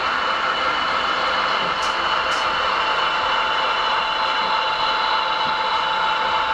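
Model diesel locomotive running past on the layout: a steady mechanical hum with a fixed high whine.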